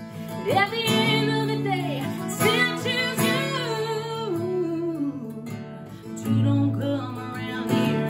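A woman singing a country song and strumming an acoustic guitar. The vocal comes in two phrases with a short gap about three-quarters of the way through, where the guitar carries on alone.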